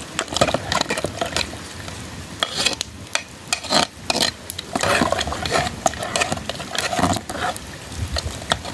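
A utensil stirring food in a cooking pot, with irregular scrapes and clinks against the pot's sides.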